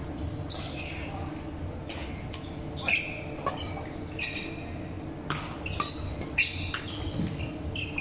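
Badminton rally: sharp racket strikes on the shuttlecock and short shoe squeaks on the wooden court floor, about a dozen in all, over a steady low hall hum.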